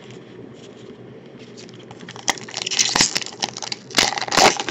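Foil trading-card pack wrapper crinkling and crackling in the hands as it is picked up and opened, starting about two seconds in after a quiet moment.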